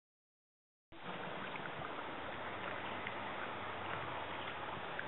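Silent for about the first second, then outdoor ambient noise starts abruptly: a steady, even rushing sound with a faint low hum under it and a few small clicks.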